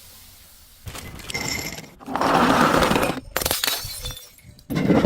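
Glass bottle breaking and shattering: a run of crunching crashes with ringing glass pieces, the loudest from about two to three seconds in, and another starting near the end.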